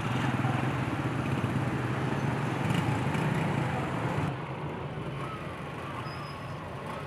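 Pickup truck engine running close by, a steady low rumble; about four seconds in it cuts to quieter street traffic noise.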